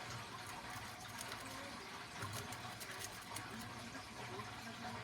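Faint, irregular light clicks and scraping of a lock pick and tension wrench working the pin stacks of a deadbolt cylinder, over a steady hiss and low hum.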